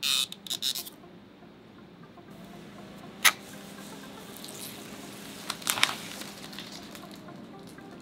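Protective plastic film being peeled off, first from a graphics card's shroud and then from a tempered-glass side panel: short crackles and crinkles in the first second and again about five and a half seconds in, with one sharp click about three seconds in.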